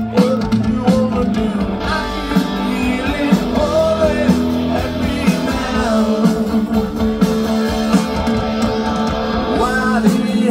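Rock band playing live with electric guitar, drums and a singer.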